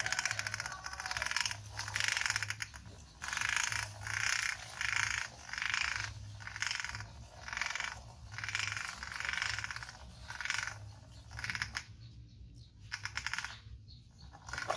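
Toy truck's plastic wheels rattling and scraping over the ground in repeated short tugs, about one or two a second, thinning out near the end.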